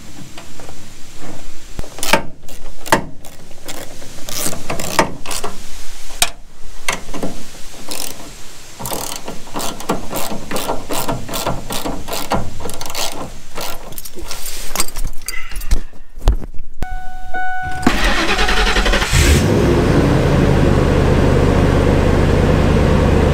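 Pickup tail light assembly being pushed and snapped back into its mounting: a run of sharp plastic clicks and knocks. About seventeen seconds in a brief steady tone sounds, then the Ford pickup's engine is cranked, catches and settles into a steady idle.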